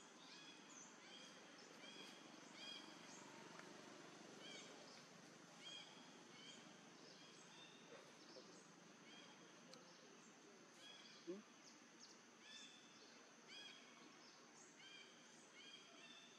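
Faint ambience of small birds chirping, short repeated arched notes over a thin steady high insect hum. A single brief low gliding sound stands out about eleven seconds in.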